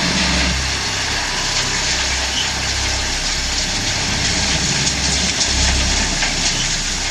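Diesel loader engines and a BALA round-bale waste press running steadily: a low engine drone under a constant hiss.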